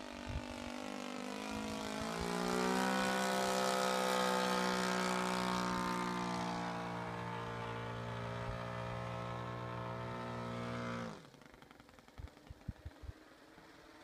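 Four-stroke glow engine of a large RC model Tiger Moth biplane running in flight with its propeller, an even note with many overtones. About two seconds in the note steps up and gets louder, then holds steady. About eleven seconds in the engine sound drops away abruptly, leaving a faint background with a few clicks.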